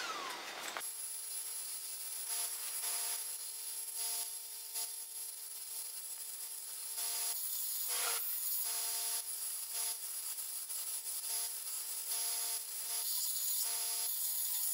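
Abrasive power tool rasping against a steel bracket, with a steady whine underneath and short breaks and changes in the rasp as the work moves.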